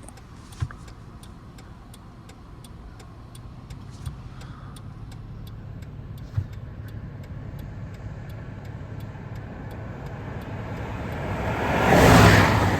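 Steady low rumble with faint, regular ticking about two or three times a second. About eleven seconds in, a loud rushing swell of noise builds, peaks and carries on to the end.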